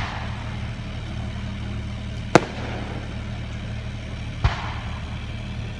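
Aerial fireworks bursting: three sharp bangs about two seconds apart, each trailing off briefly, over a steady low hum.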